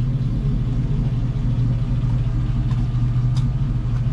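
A steady low engine hum, like a vehicle idling, with a couple of faint light clicks in the second half.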